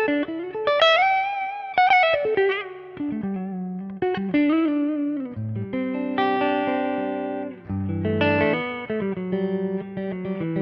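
Electric guitar lead playing from a PRS guitar through a Jet City valve amp: melodic lines with held notes, upward string bends and vibrato over lower sustained notes.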